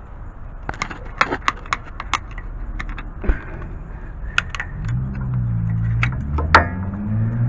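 Sharp metallic clicks and scrapes of a flathead screwdriver prying at the metal retainer clip on an inner tie rod boot. From about five seconds in, a low vehicle engine drone rises underneath.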